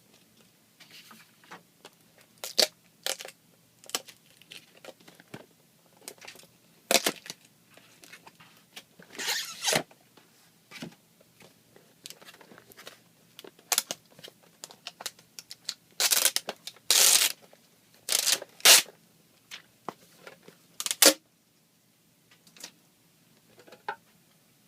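Packaging being opened by hand: irregular bursts of tearing, rustling and scraping, with a few longer tears in the middle and a sharp snap or rip about 21 seconds in, then it goes quieter.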